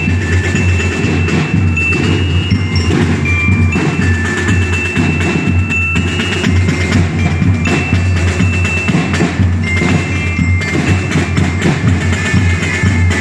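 Drum and bugle band playing: drums keep a steady, dense beat under a high melody of held notes that step from pitch to pitch.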